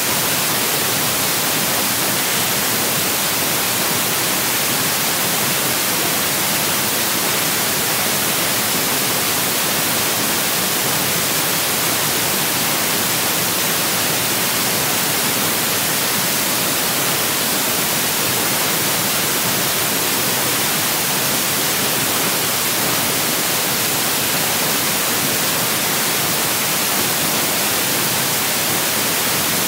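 Loud, steady static hiss with no voice, even throughout and brightest in the high end: electronic noise from the screen recording's audio input.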